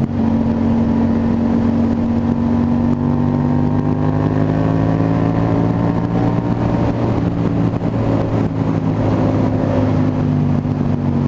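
Yamaha motorcycle engine running under way, heard from on board the bike, with wind rush over the microphone. The engine note is steady, with a gentle rise in pitch around the middle.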